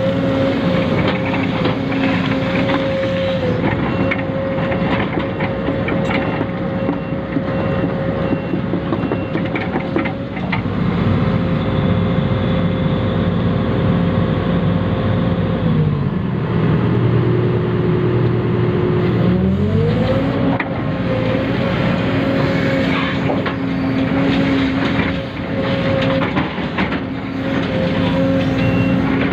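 Small electric motors and gearboxes of radio-controlled models whining steadily, with many small clicks and scrapes. About 16 seconds in, the whine drops in pitch, then climbs back about three seconds later.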